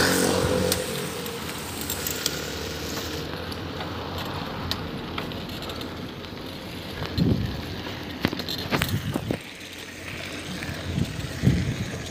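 A bicycle being ridden, with wind rushing over the phone's microphone and scattered rattles and knocks from the bike, a few louder knocks about seven to nine seconds in.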